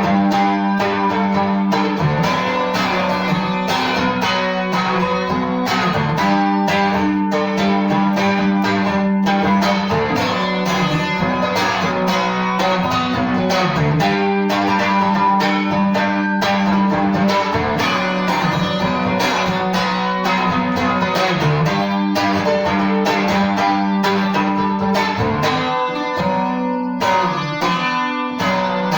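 Seagull Merlin M4, a four-string fretted dulcimer-style instrument, played solo. Quick plucked melody notes run over a steady open-string drone that breaks only briefly now and then.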